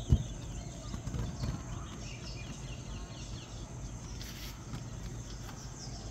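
Outdoor bush ambience: scattered small bird chirps over a steady low rumble, with one loud dull thump just after the start and a brief hiss about four seconds in.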